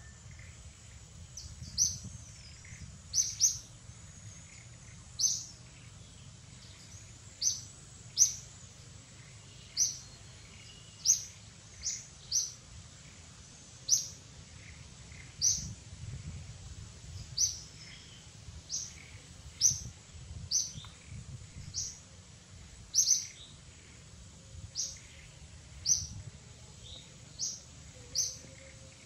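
A bird calling with short, high-pitched chirps, repeated irregularly about once every one to two seconds, over a faint low background rumble.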